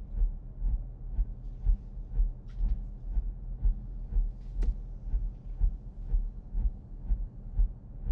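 Heartbeat sound effect in a film soundtrack: low, even thumps about two a second over a steady low drone, with a single sharp click about four and a half seconds in.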